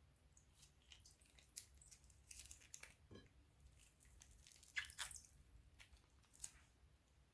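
Crunchy slime being squeezed and worked by hand, giving faint, irregular crackles, clicks and squishes. The sharpest crackle comes a little under five seconds in.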